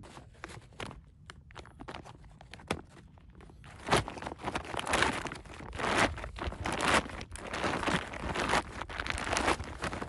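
Footsteps crunching through snow: a few soft clicks, then from about four seconds in loud crunching steps at about one a second.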